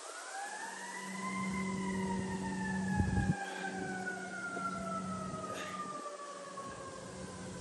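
A siren wailing: it rises in pitch for about a second, then falls slowly and steadily in one long wail. A brief low thump comes about three seconds in.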